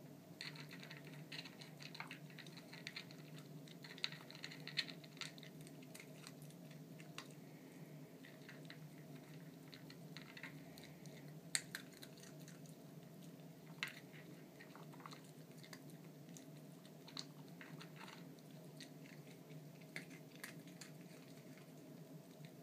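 Faint chewing, with scattered small clicks and crackles, as a Papillon eats from a plastic Dog Tornado puzzle feeder and nudges its tiers. A few louder ticks stand out, over a steady low hum.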